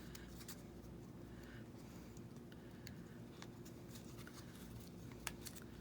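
Faint rustling of paper being handled, with scattered light taps and clicks over a low steady room hum.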